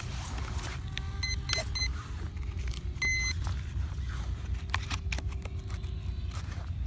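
Electronic speed controllers of a twin-motor electric RC plane beeping: a short stepped tone sequence about a second in and a single longer beep about three seconds in, the usual power-up and arming tones. A steady low rumble and a few clicks run underneath.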